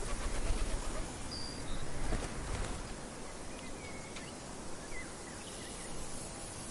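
Wind blowing in low gusts, strongest in the first three seconds, over a steady high hiss of insects, with a few short bird chirps.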